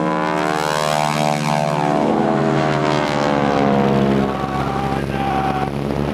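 Propeller aircraft engine droning loudly as the plane flies past, its pitch sliding down as it goes by.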